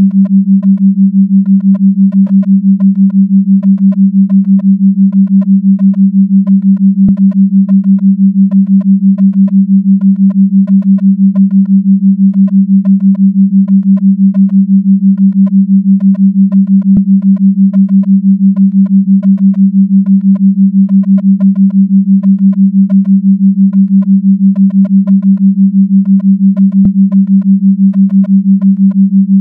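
Steady low electronic sine tone near 200 Hz, pulsing on and off evenly about six times a second, a 6 Hz beat stimulus. Faint short higher blips are scattered over it, and a faint click comes about every ten seconds.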